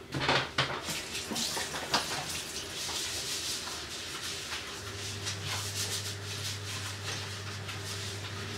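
Kitchen tap running while hands are washed under it, a steady splashing hiss with a few clicks early on. A low steady hum joins about halfway through.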